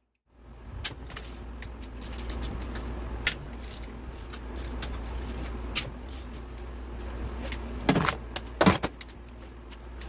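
Metal clinks and taps of tools and engine case bolts being handled, over a steady low hum, with two louder knocks near the end.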